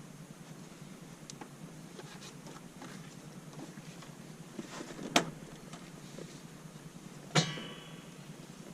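Faint clicks and knocks of hand work on radiator hoses and clips, with two sharp metallic clanks about two seconds apart. The second clank is the loudest and rings on briefly.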